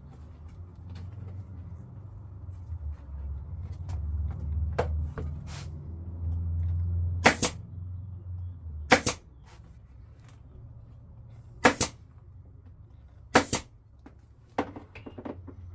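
Pneumatic upholstery staple gun firing four times, a sharp crack every second or two, stapling a stretched vinyl cover onto a golf cart seat pan. A low rumble runs under the first half, and a few fainter snaps fall between the shots.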